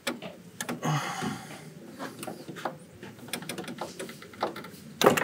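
Hand tool working a bolt on the engine: irregular metallic clicks and scrapes, a short scraping rasp about a second in and a sharp metal clank near the end.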